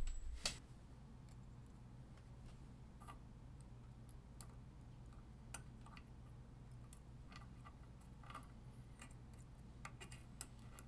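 Faint, scattered light metallic clicks of thin punched aluminum heat-sink fins being handled and fitted onto a stacked fin block with tweezers, a few clicks every second or two and a small cluster near the end, over a low steady hum.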